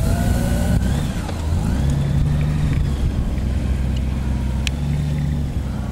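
Honda Gold Wing touring motorcycle's flat-six engine running steadily at low speed as the bike rolls slowly, its note shifting slightly about two seconds in and again near the end.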